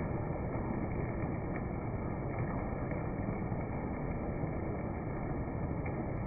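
Steady heavy rain, a dense, even hiss with no let-up.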